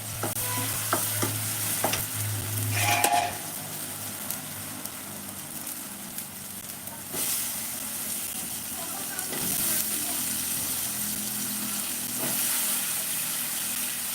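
Food frying in a pan, sizzling steadily, with a spoon stirring and scraping against the pan, sharpest in the first few seconds.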